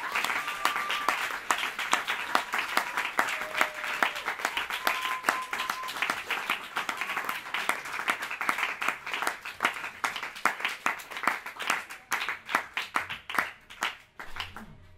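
Audience applause, dense at first, then thinning into scattered claps and dying away near the end.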